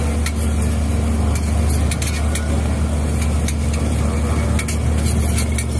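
A knife cutting through a crusty stuffed flatbread and clicking against a steel griddle several times, over a steady low rumble.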